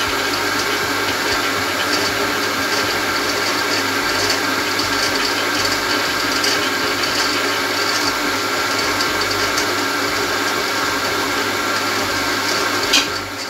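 Drill press with a reduction-gear tapping attachment running in reverse, backing an M8 tap out of a freshly cut thread: a steady mechanical whir and gear whine. A click near the end.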